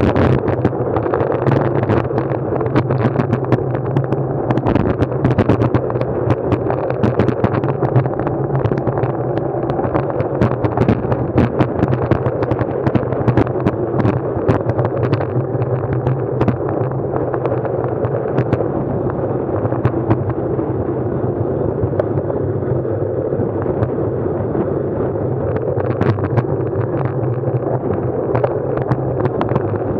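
Vehicle engine running at a steady pace during a ride, picked up by a mounted action camera, with constant wind buffeting and rough crackling on the microphone.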